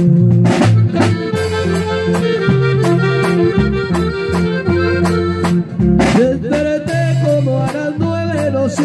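Live norteño band playing an instrumental break: button accordion leading the melody over a steady electric bass line and a regular drum beat.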